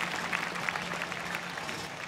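Crowd applauding in the grandstand, many hands clapping at once, over a steady low hum.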